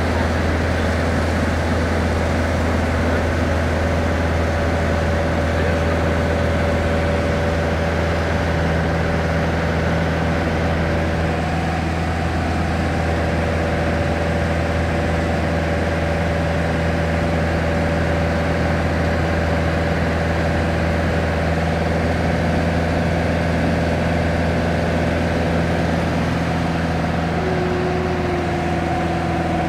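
Light touring aircraft's piston engine and propeller droning steadily, heard inside the cabin, its note shifting slightly about ten seconds in.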